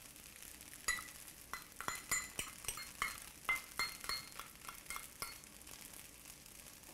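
Metal spoon clinking and scraping against a small stainless steel bowl about fifteen times, in quick irregular strokes with a short ring on each, as thick sauce is scraped out. The clinks start about a second in and stop a little after five seconds.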